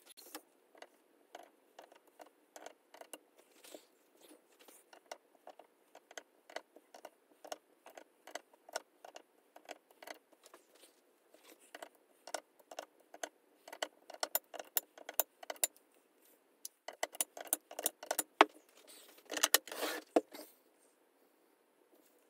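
Faint, irregular small metallic clicks and ticks from a Wheeler FAT Wrench torque screwdriver turning steel scope-ring screws, tightening them to 20 inch-pounds. A denser, louder run of clicks and rattles comes near the end.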